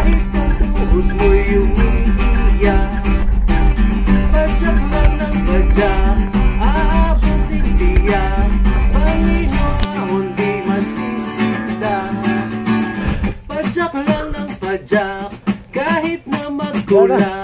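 Background music led by guitar, with a melody line that bends and wavers. The low bass drops out about ten seconds in.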